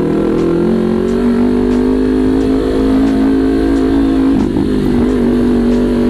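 Sport motorcycle fitted with an SC Project aftermarket exhaust canister, riding at a low, steady throttle with a loud, even exhaust note that briefly eases off about four and a half seconds in.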